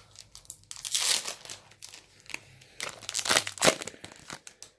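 Foil wrapper of a Pokémon Burning Shadows booster pack crinkling and tearing as it is ripped open by hand, in bursts, the loudest about a second in and about three and a half seconds in.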